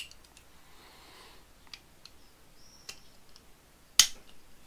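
Small metal clicks from a hex key and loosened Allen-head screws being handled against an aluminium motorcycle cylinder head: a few faint ticks, then one sharp, loud click about four seconds in.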